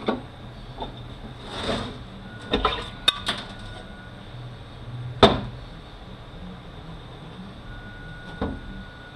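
Metal transfer case parts knocking and clanking as they are worked loose and handled: a handful of separate sharp knocks with a short scrape between them, the loudest about five seconds in.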